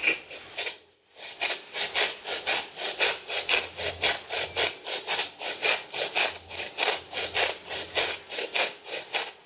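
Hand-twisted salt grinder grinding salt crystals: a short burst, then a steady run of rasping, crunching strokes, about three a second.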